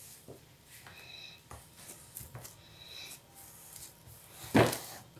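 Soft rubbing and shuffling of hands rolling a soft, coconut-filled dough log along a metal baking tray, with a few faint clicks and a louder brief bump near the end.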